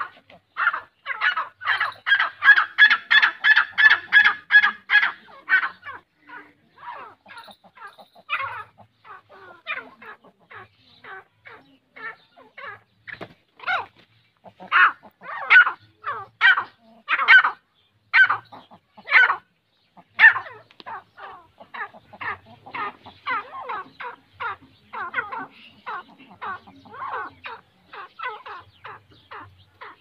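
Grey francolins calling: a fast run of short, harsh, repeated notes, about four or five a second, in the first few seconds, then more scattered notes and short runs continuing throughout.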